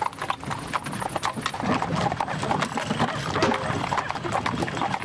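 Horse hooves clip-clopping in a quick, irregular run as a pair of horses pull a covered wagon.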